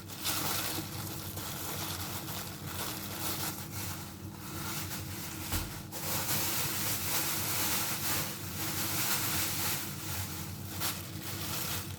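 Plastic bags crinkling and rustling as food is handled and packed, over a steady low hum.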